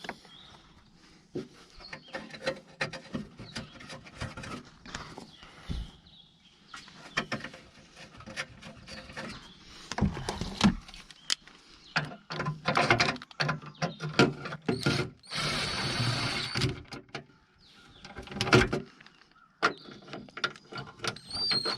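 Impact driver running the small nuts down onto a new door latch in short bursts, with one steady run of about a second and a half a little past the middle, among clinks and knocks of tools and metal parts.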